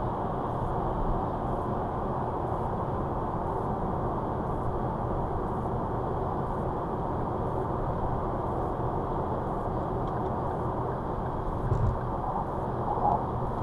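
Steady road and tyre noise with engine hum, heard inside a car's cabin at motorway speed. There is a brief low bump near the end.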